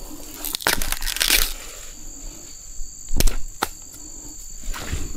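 Dry leaves and stems crunching and crackling, then two sharp snaps a little after three seconds in, the first the loudest, while insects drone steadily on one high note.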